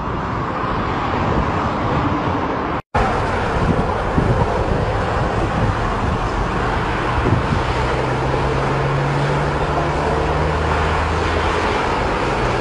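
Steady roar of jet aircraft engine noise with wind on the microphone, broken by a short silent cut about three seconds in.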